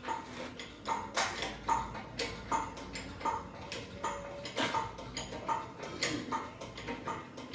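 Repeated sharp metallic clicks, about two a second, each with a short ring, like a ratchet or hoist mechanism working step by step.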